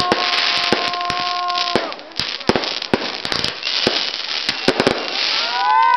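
Fireworks going off: a rapid run of sharp bangs over steady crackling, with a long steady tone in the first two seconds and rising tones near the end.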